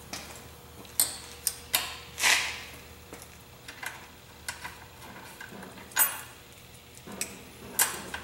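Scattered sharp metallic clicks and taps, with a brief scrape about two seconds in, as steel spacer plates are handled and fitted against the car's underbody at the rear subframe mounts.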